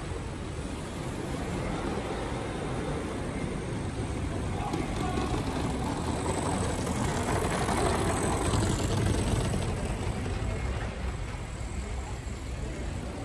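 Steady background rumble of a busy exhibition hall, growing louder in the middle and easing off again near the end.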